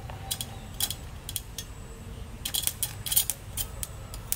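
Sparking crackle from a homemade 24 V battery welder as its electrode is touched to thin steel: irregular sharp crackles, singly and in short clusters. The new electrode core is burning on its first use.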